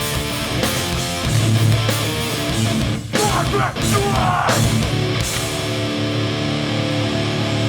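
Hardcore punk band playing live: distorted electric guitars, bass and drums. It ends on a long ringing chord held from about five seconds in.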